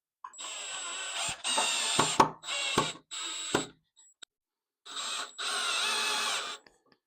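Power drill driving screws through tabletop fastener brackets, its motor running in several short bursts with a pause in the middle and the pitch shifting as each screw goes in.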